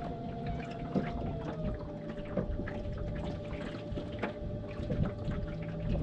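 A small boat's motor running at trolling speed, a steady whine that drops a little in pitch over the first couple of seconds and then holds, over low rumbling water noise with a few small knocks against the hull.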